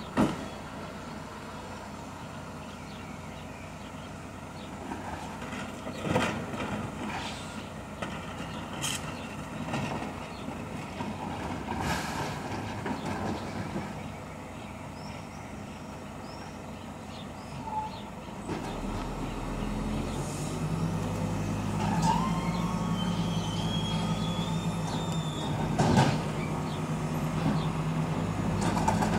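Airbus A350-900's Rolls-Royce Trent XWB turbofans on approach overhead: a low, steady drone that comes in about two-thirds of the way through and grows louder. A few sharp knocks sound in the background.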